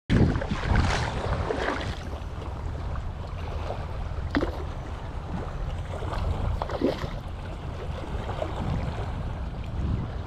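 Wind buffeting the microphone over shallow seawater lapping on a rocky shore, with a few short, sharp knocks or splashes about four and seven seconds in.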